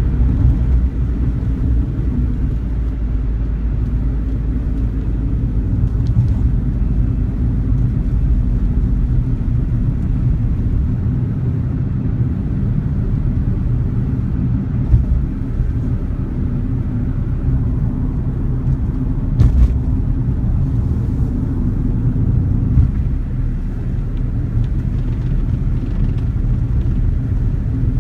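Suzuki Wagon R Stingray (MH34S) heard from inside the cabin while driving: a steady low rumble of road and engine noise, with a few brief knocks in the second half.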